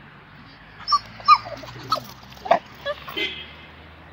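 A dog giving several short, high-pitched whimpers in quick succession, starting about a second in.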